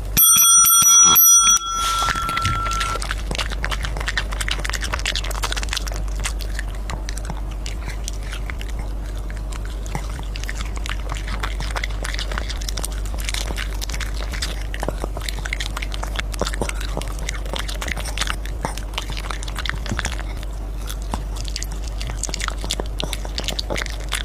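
A bell-like ringing tone for about a second and a half. Then a long run of small clicks and crunches from a puppy eating its food.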